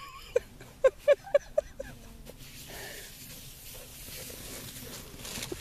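A dog gives a quick series of short, high yelps, about eight in the first two seconds, followed by a steady rushing hiss.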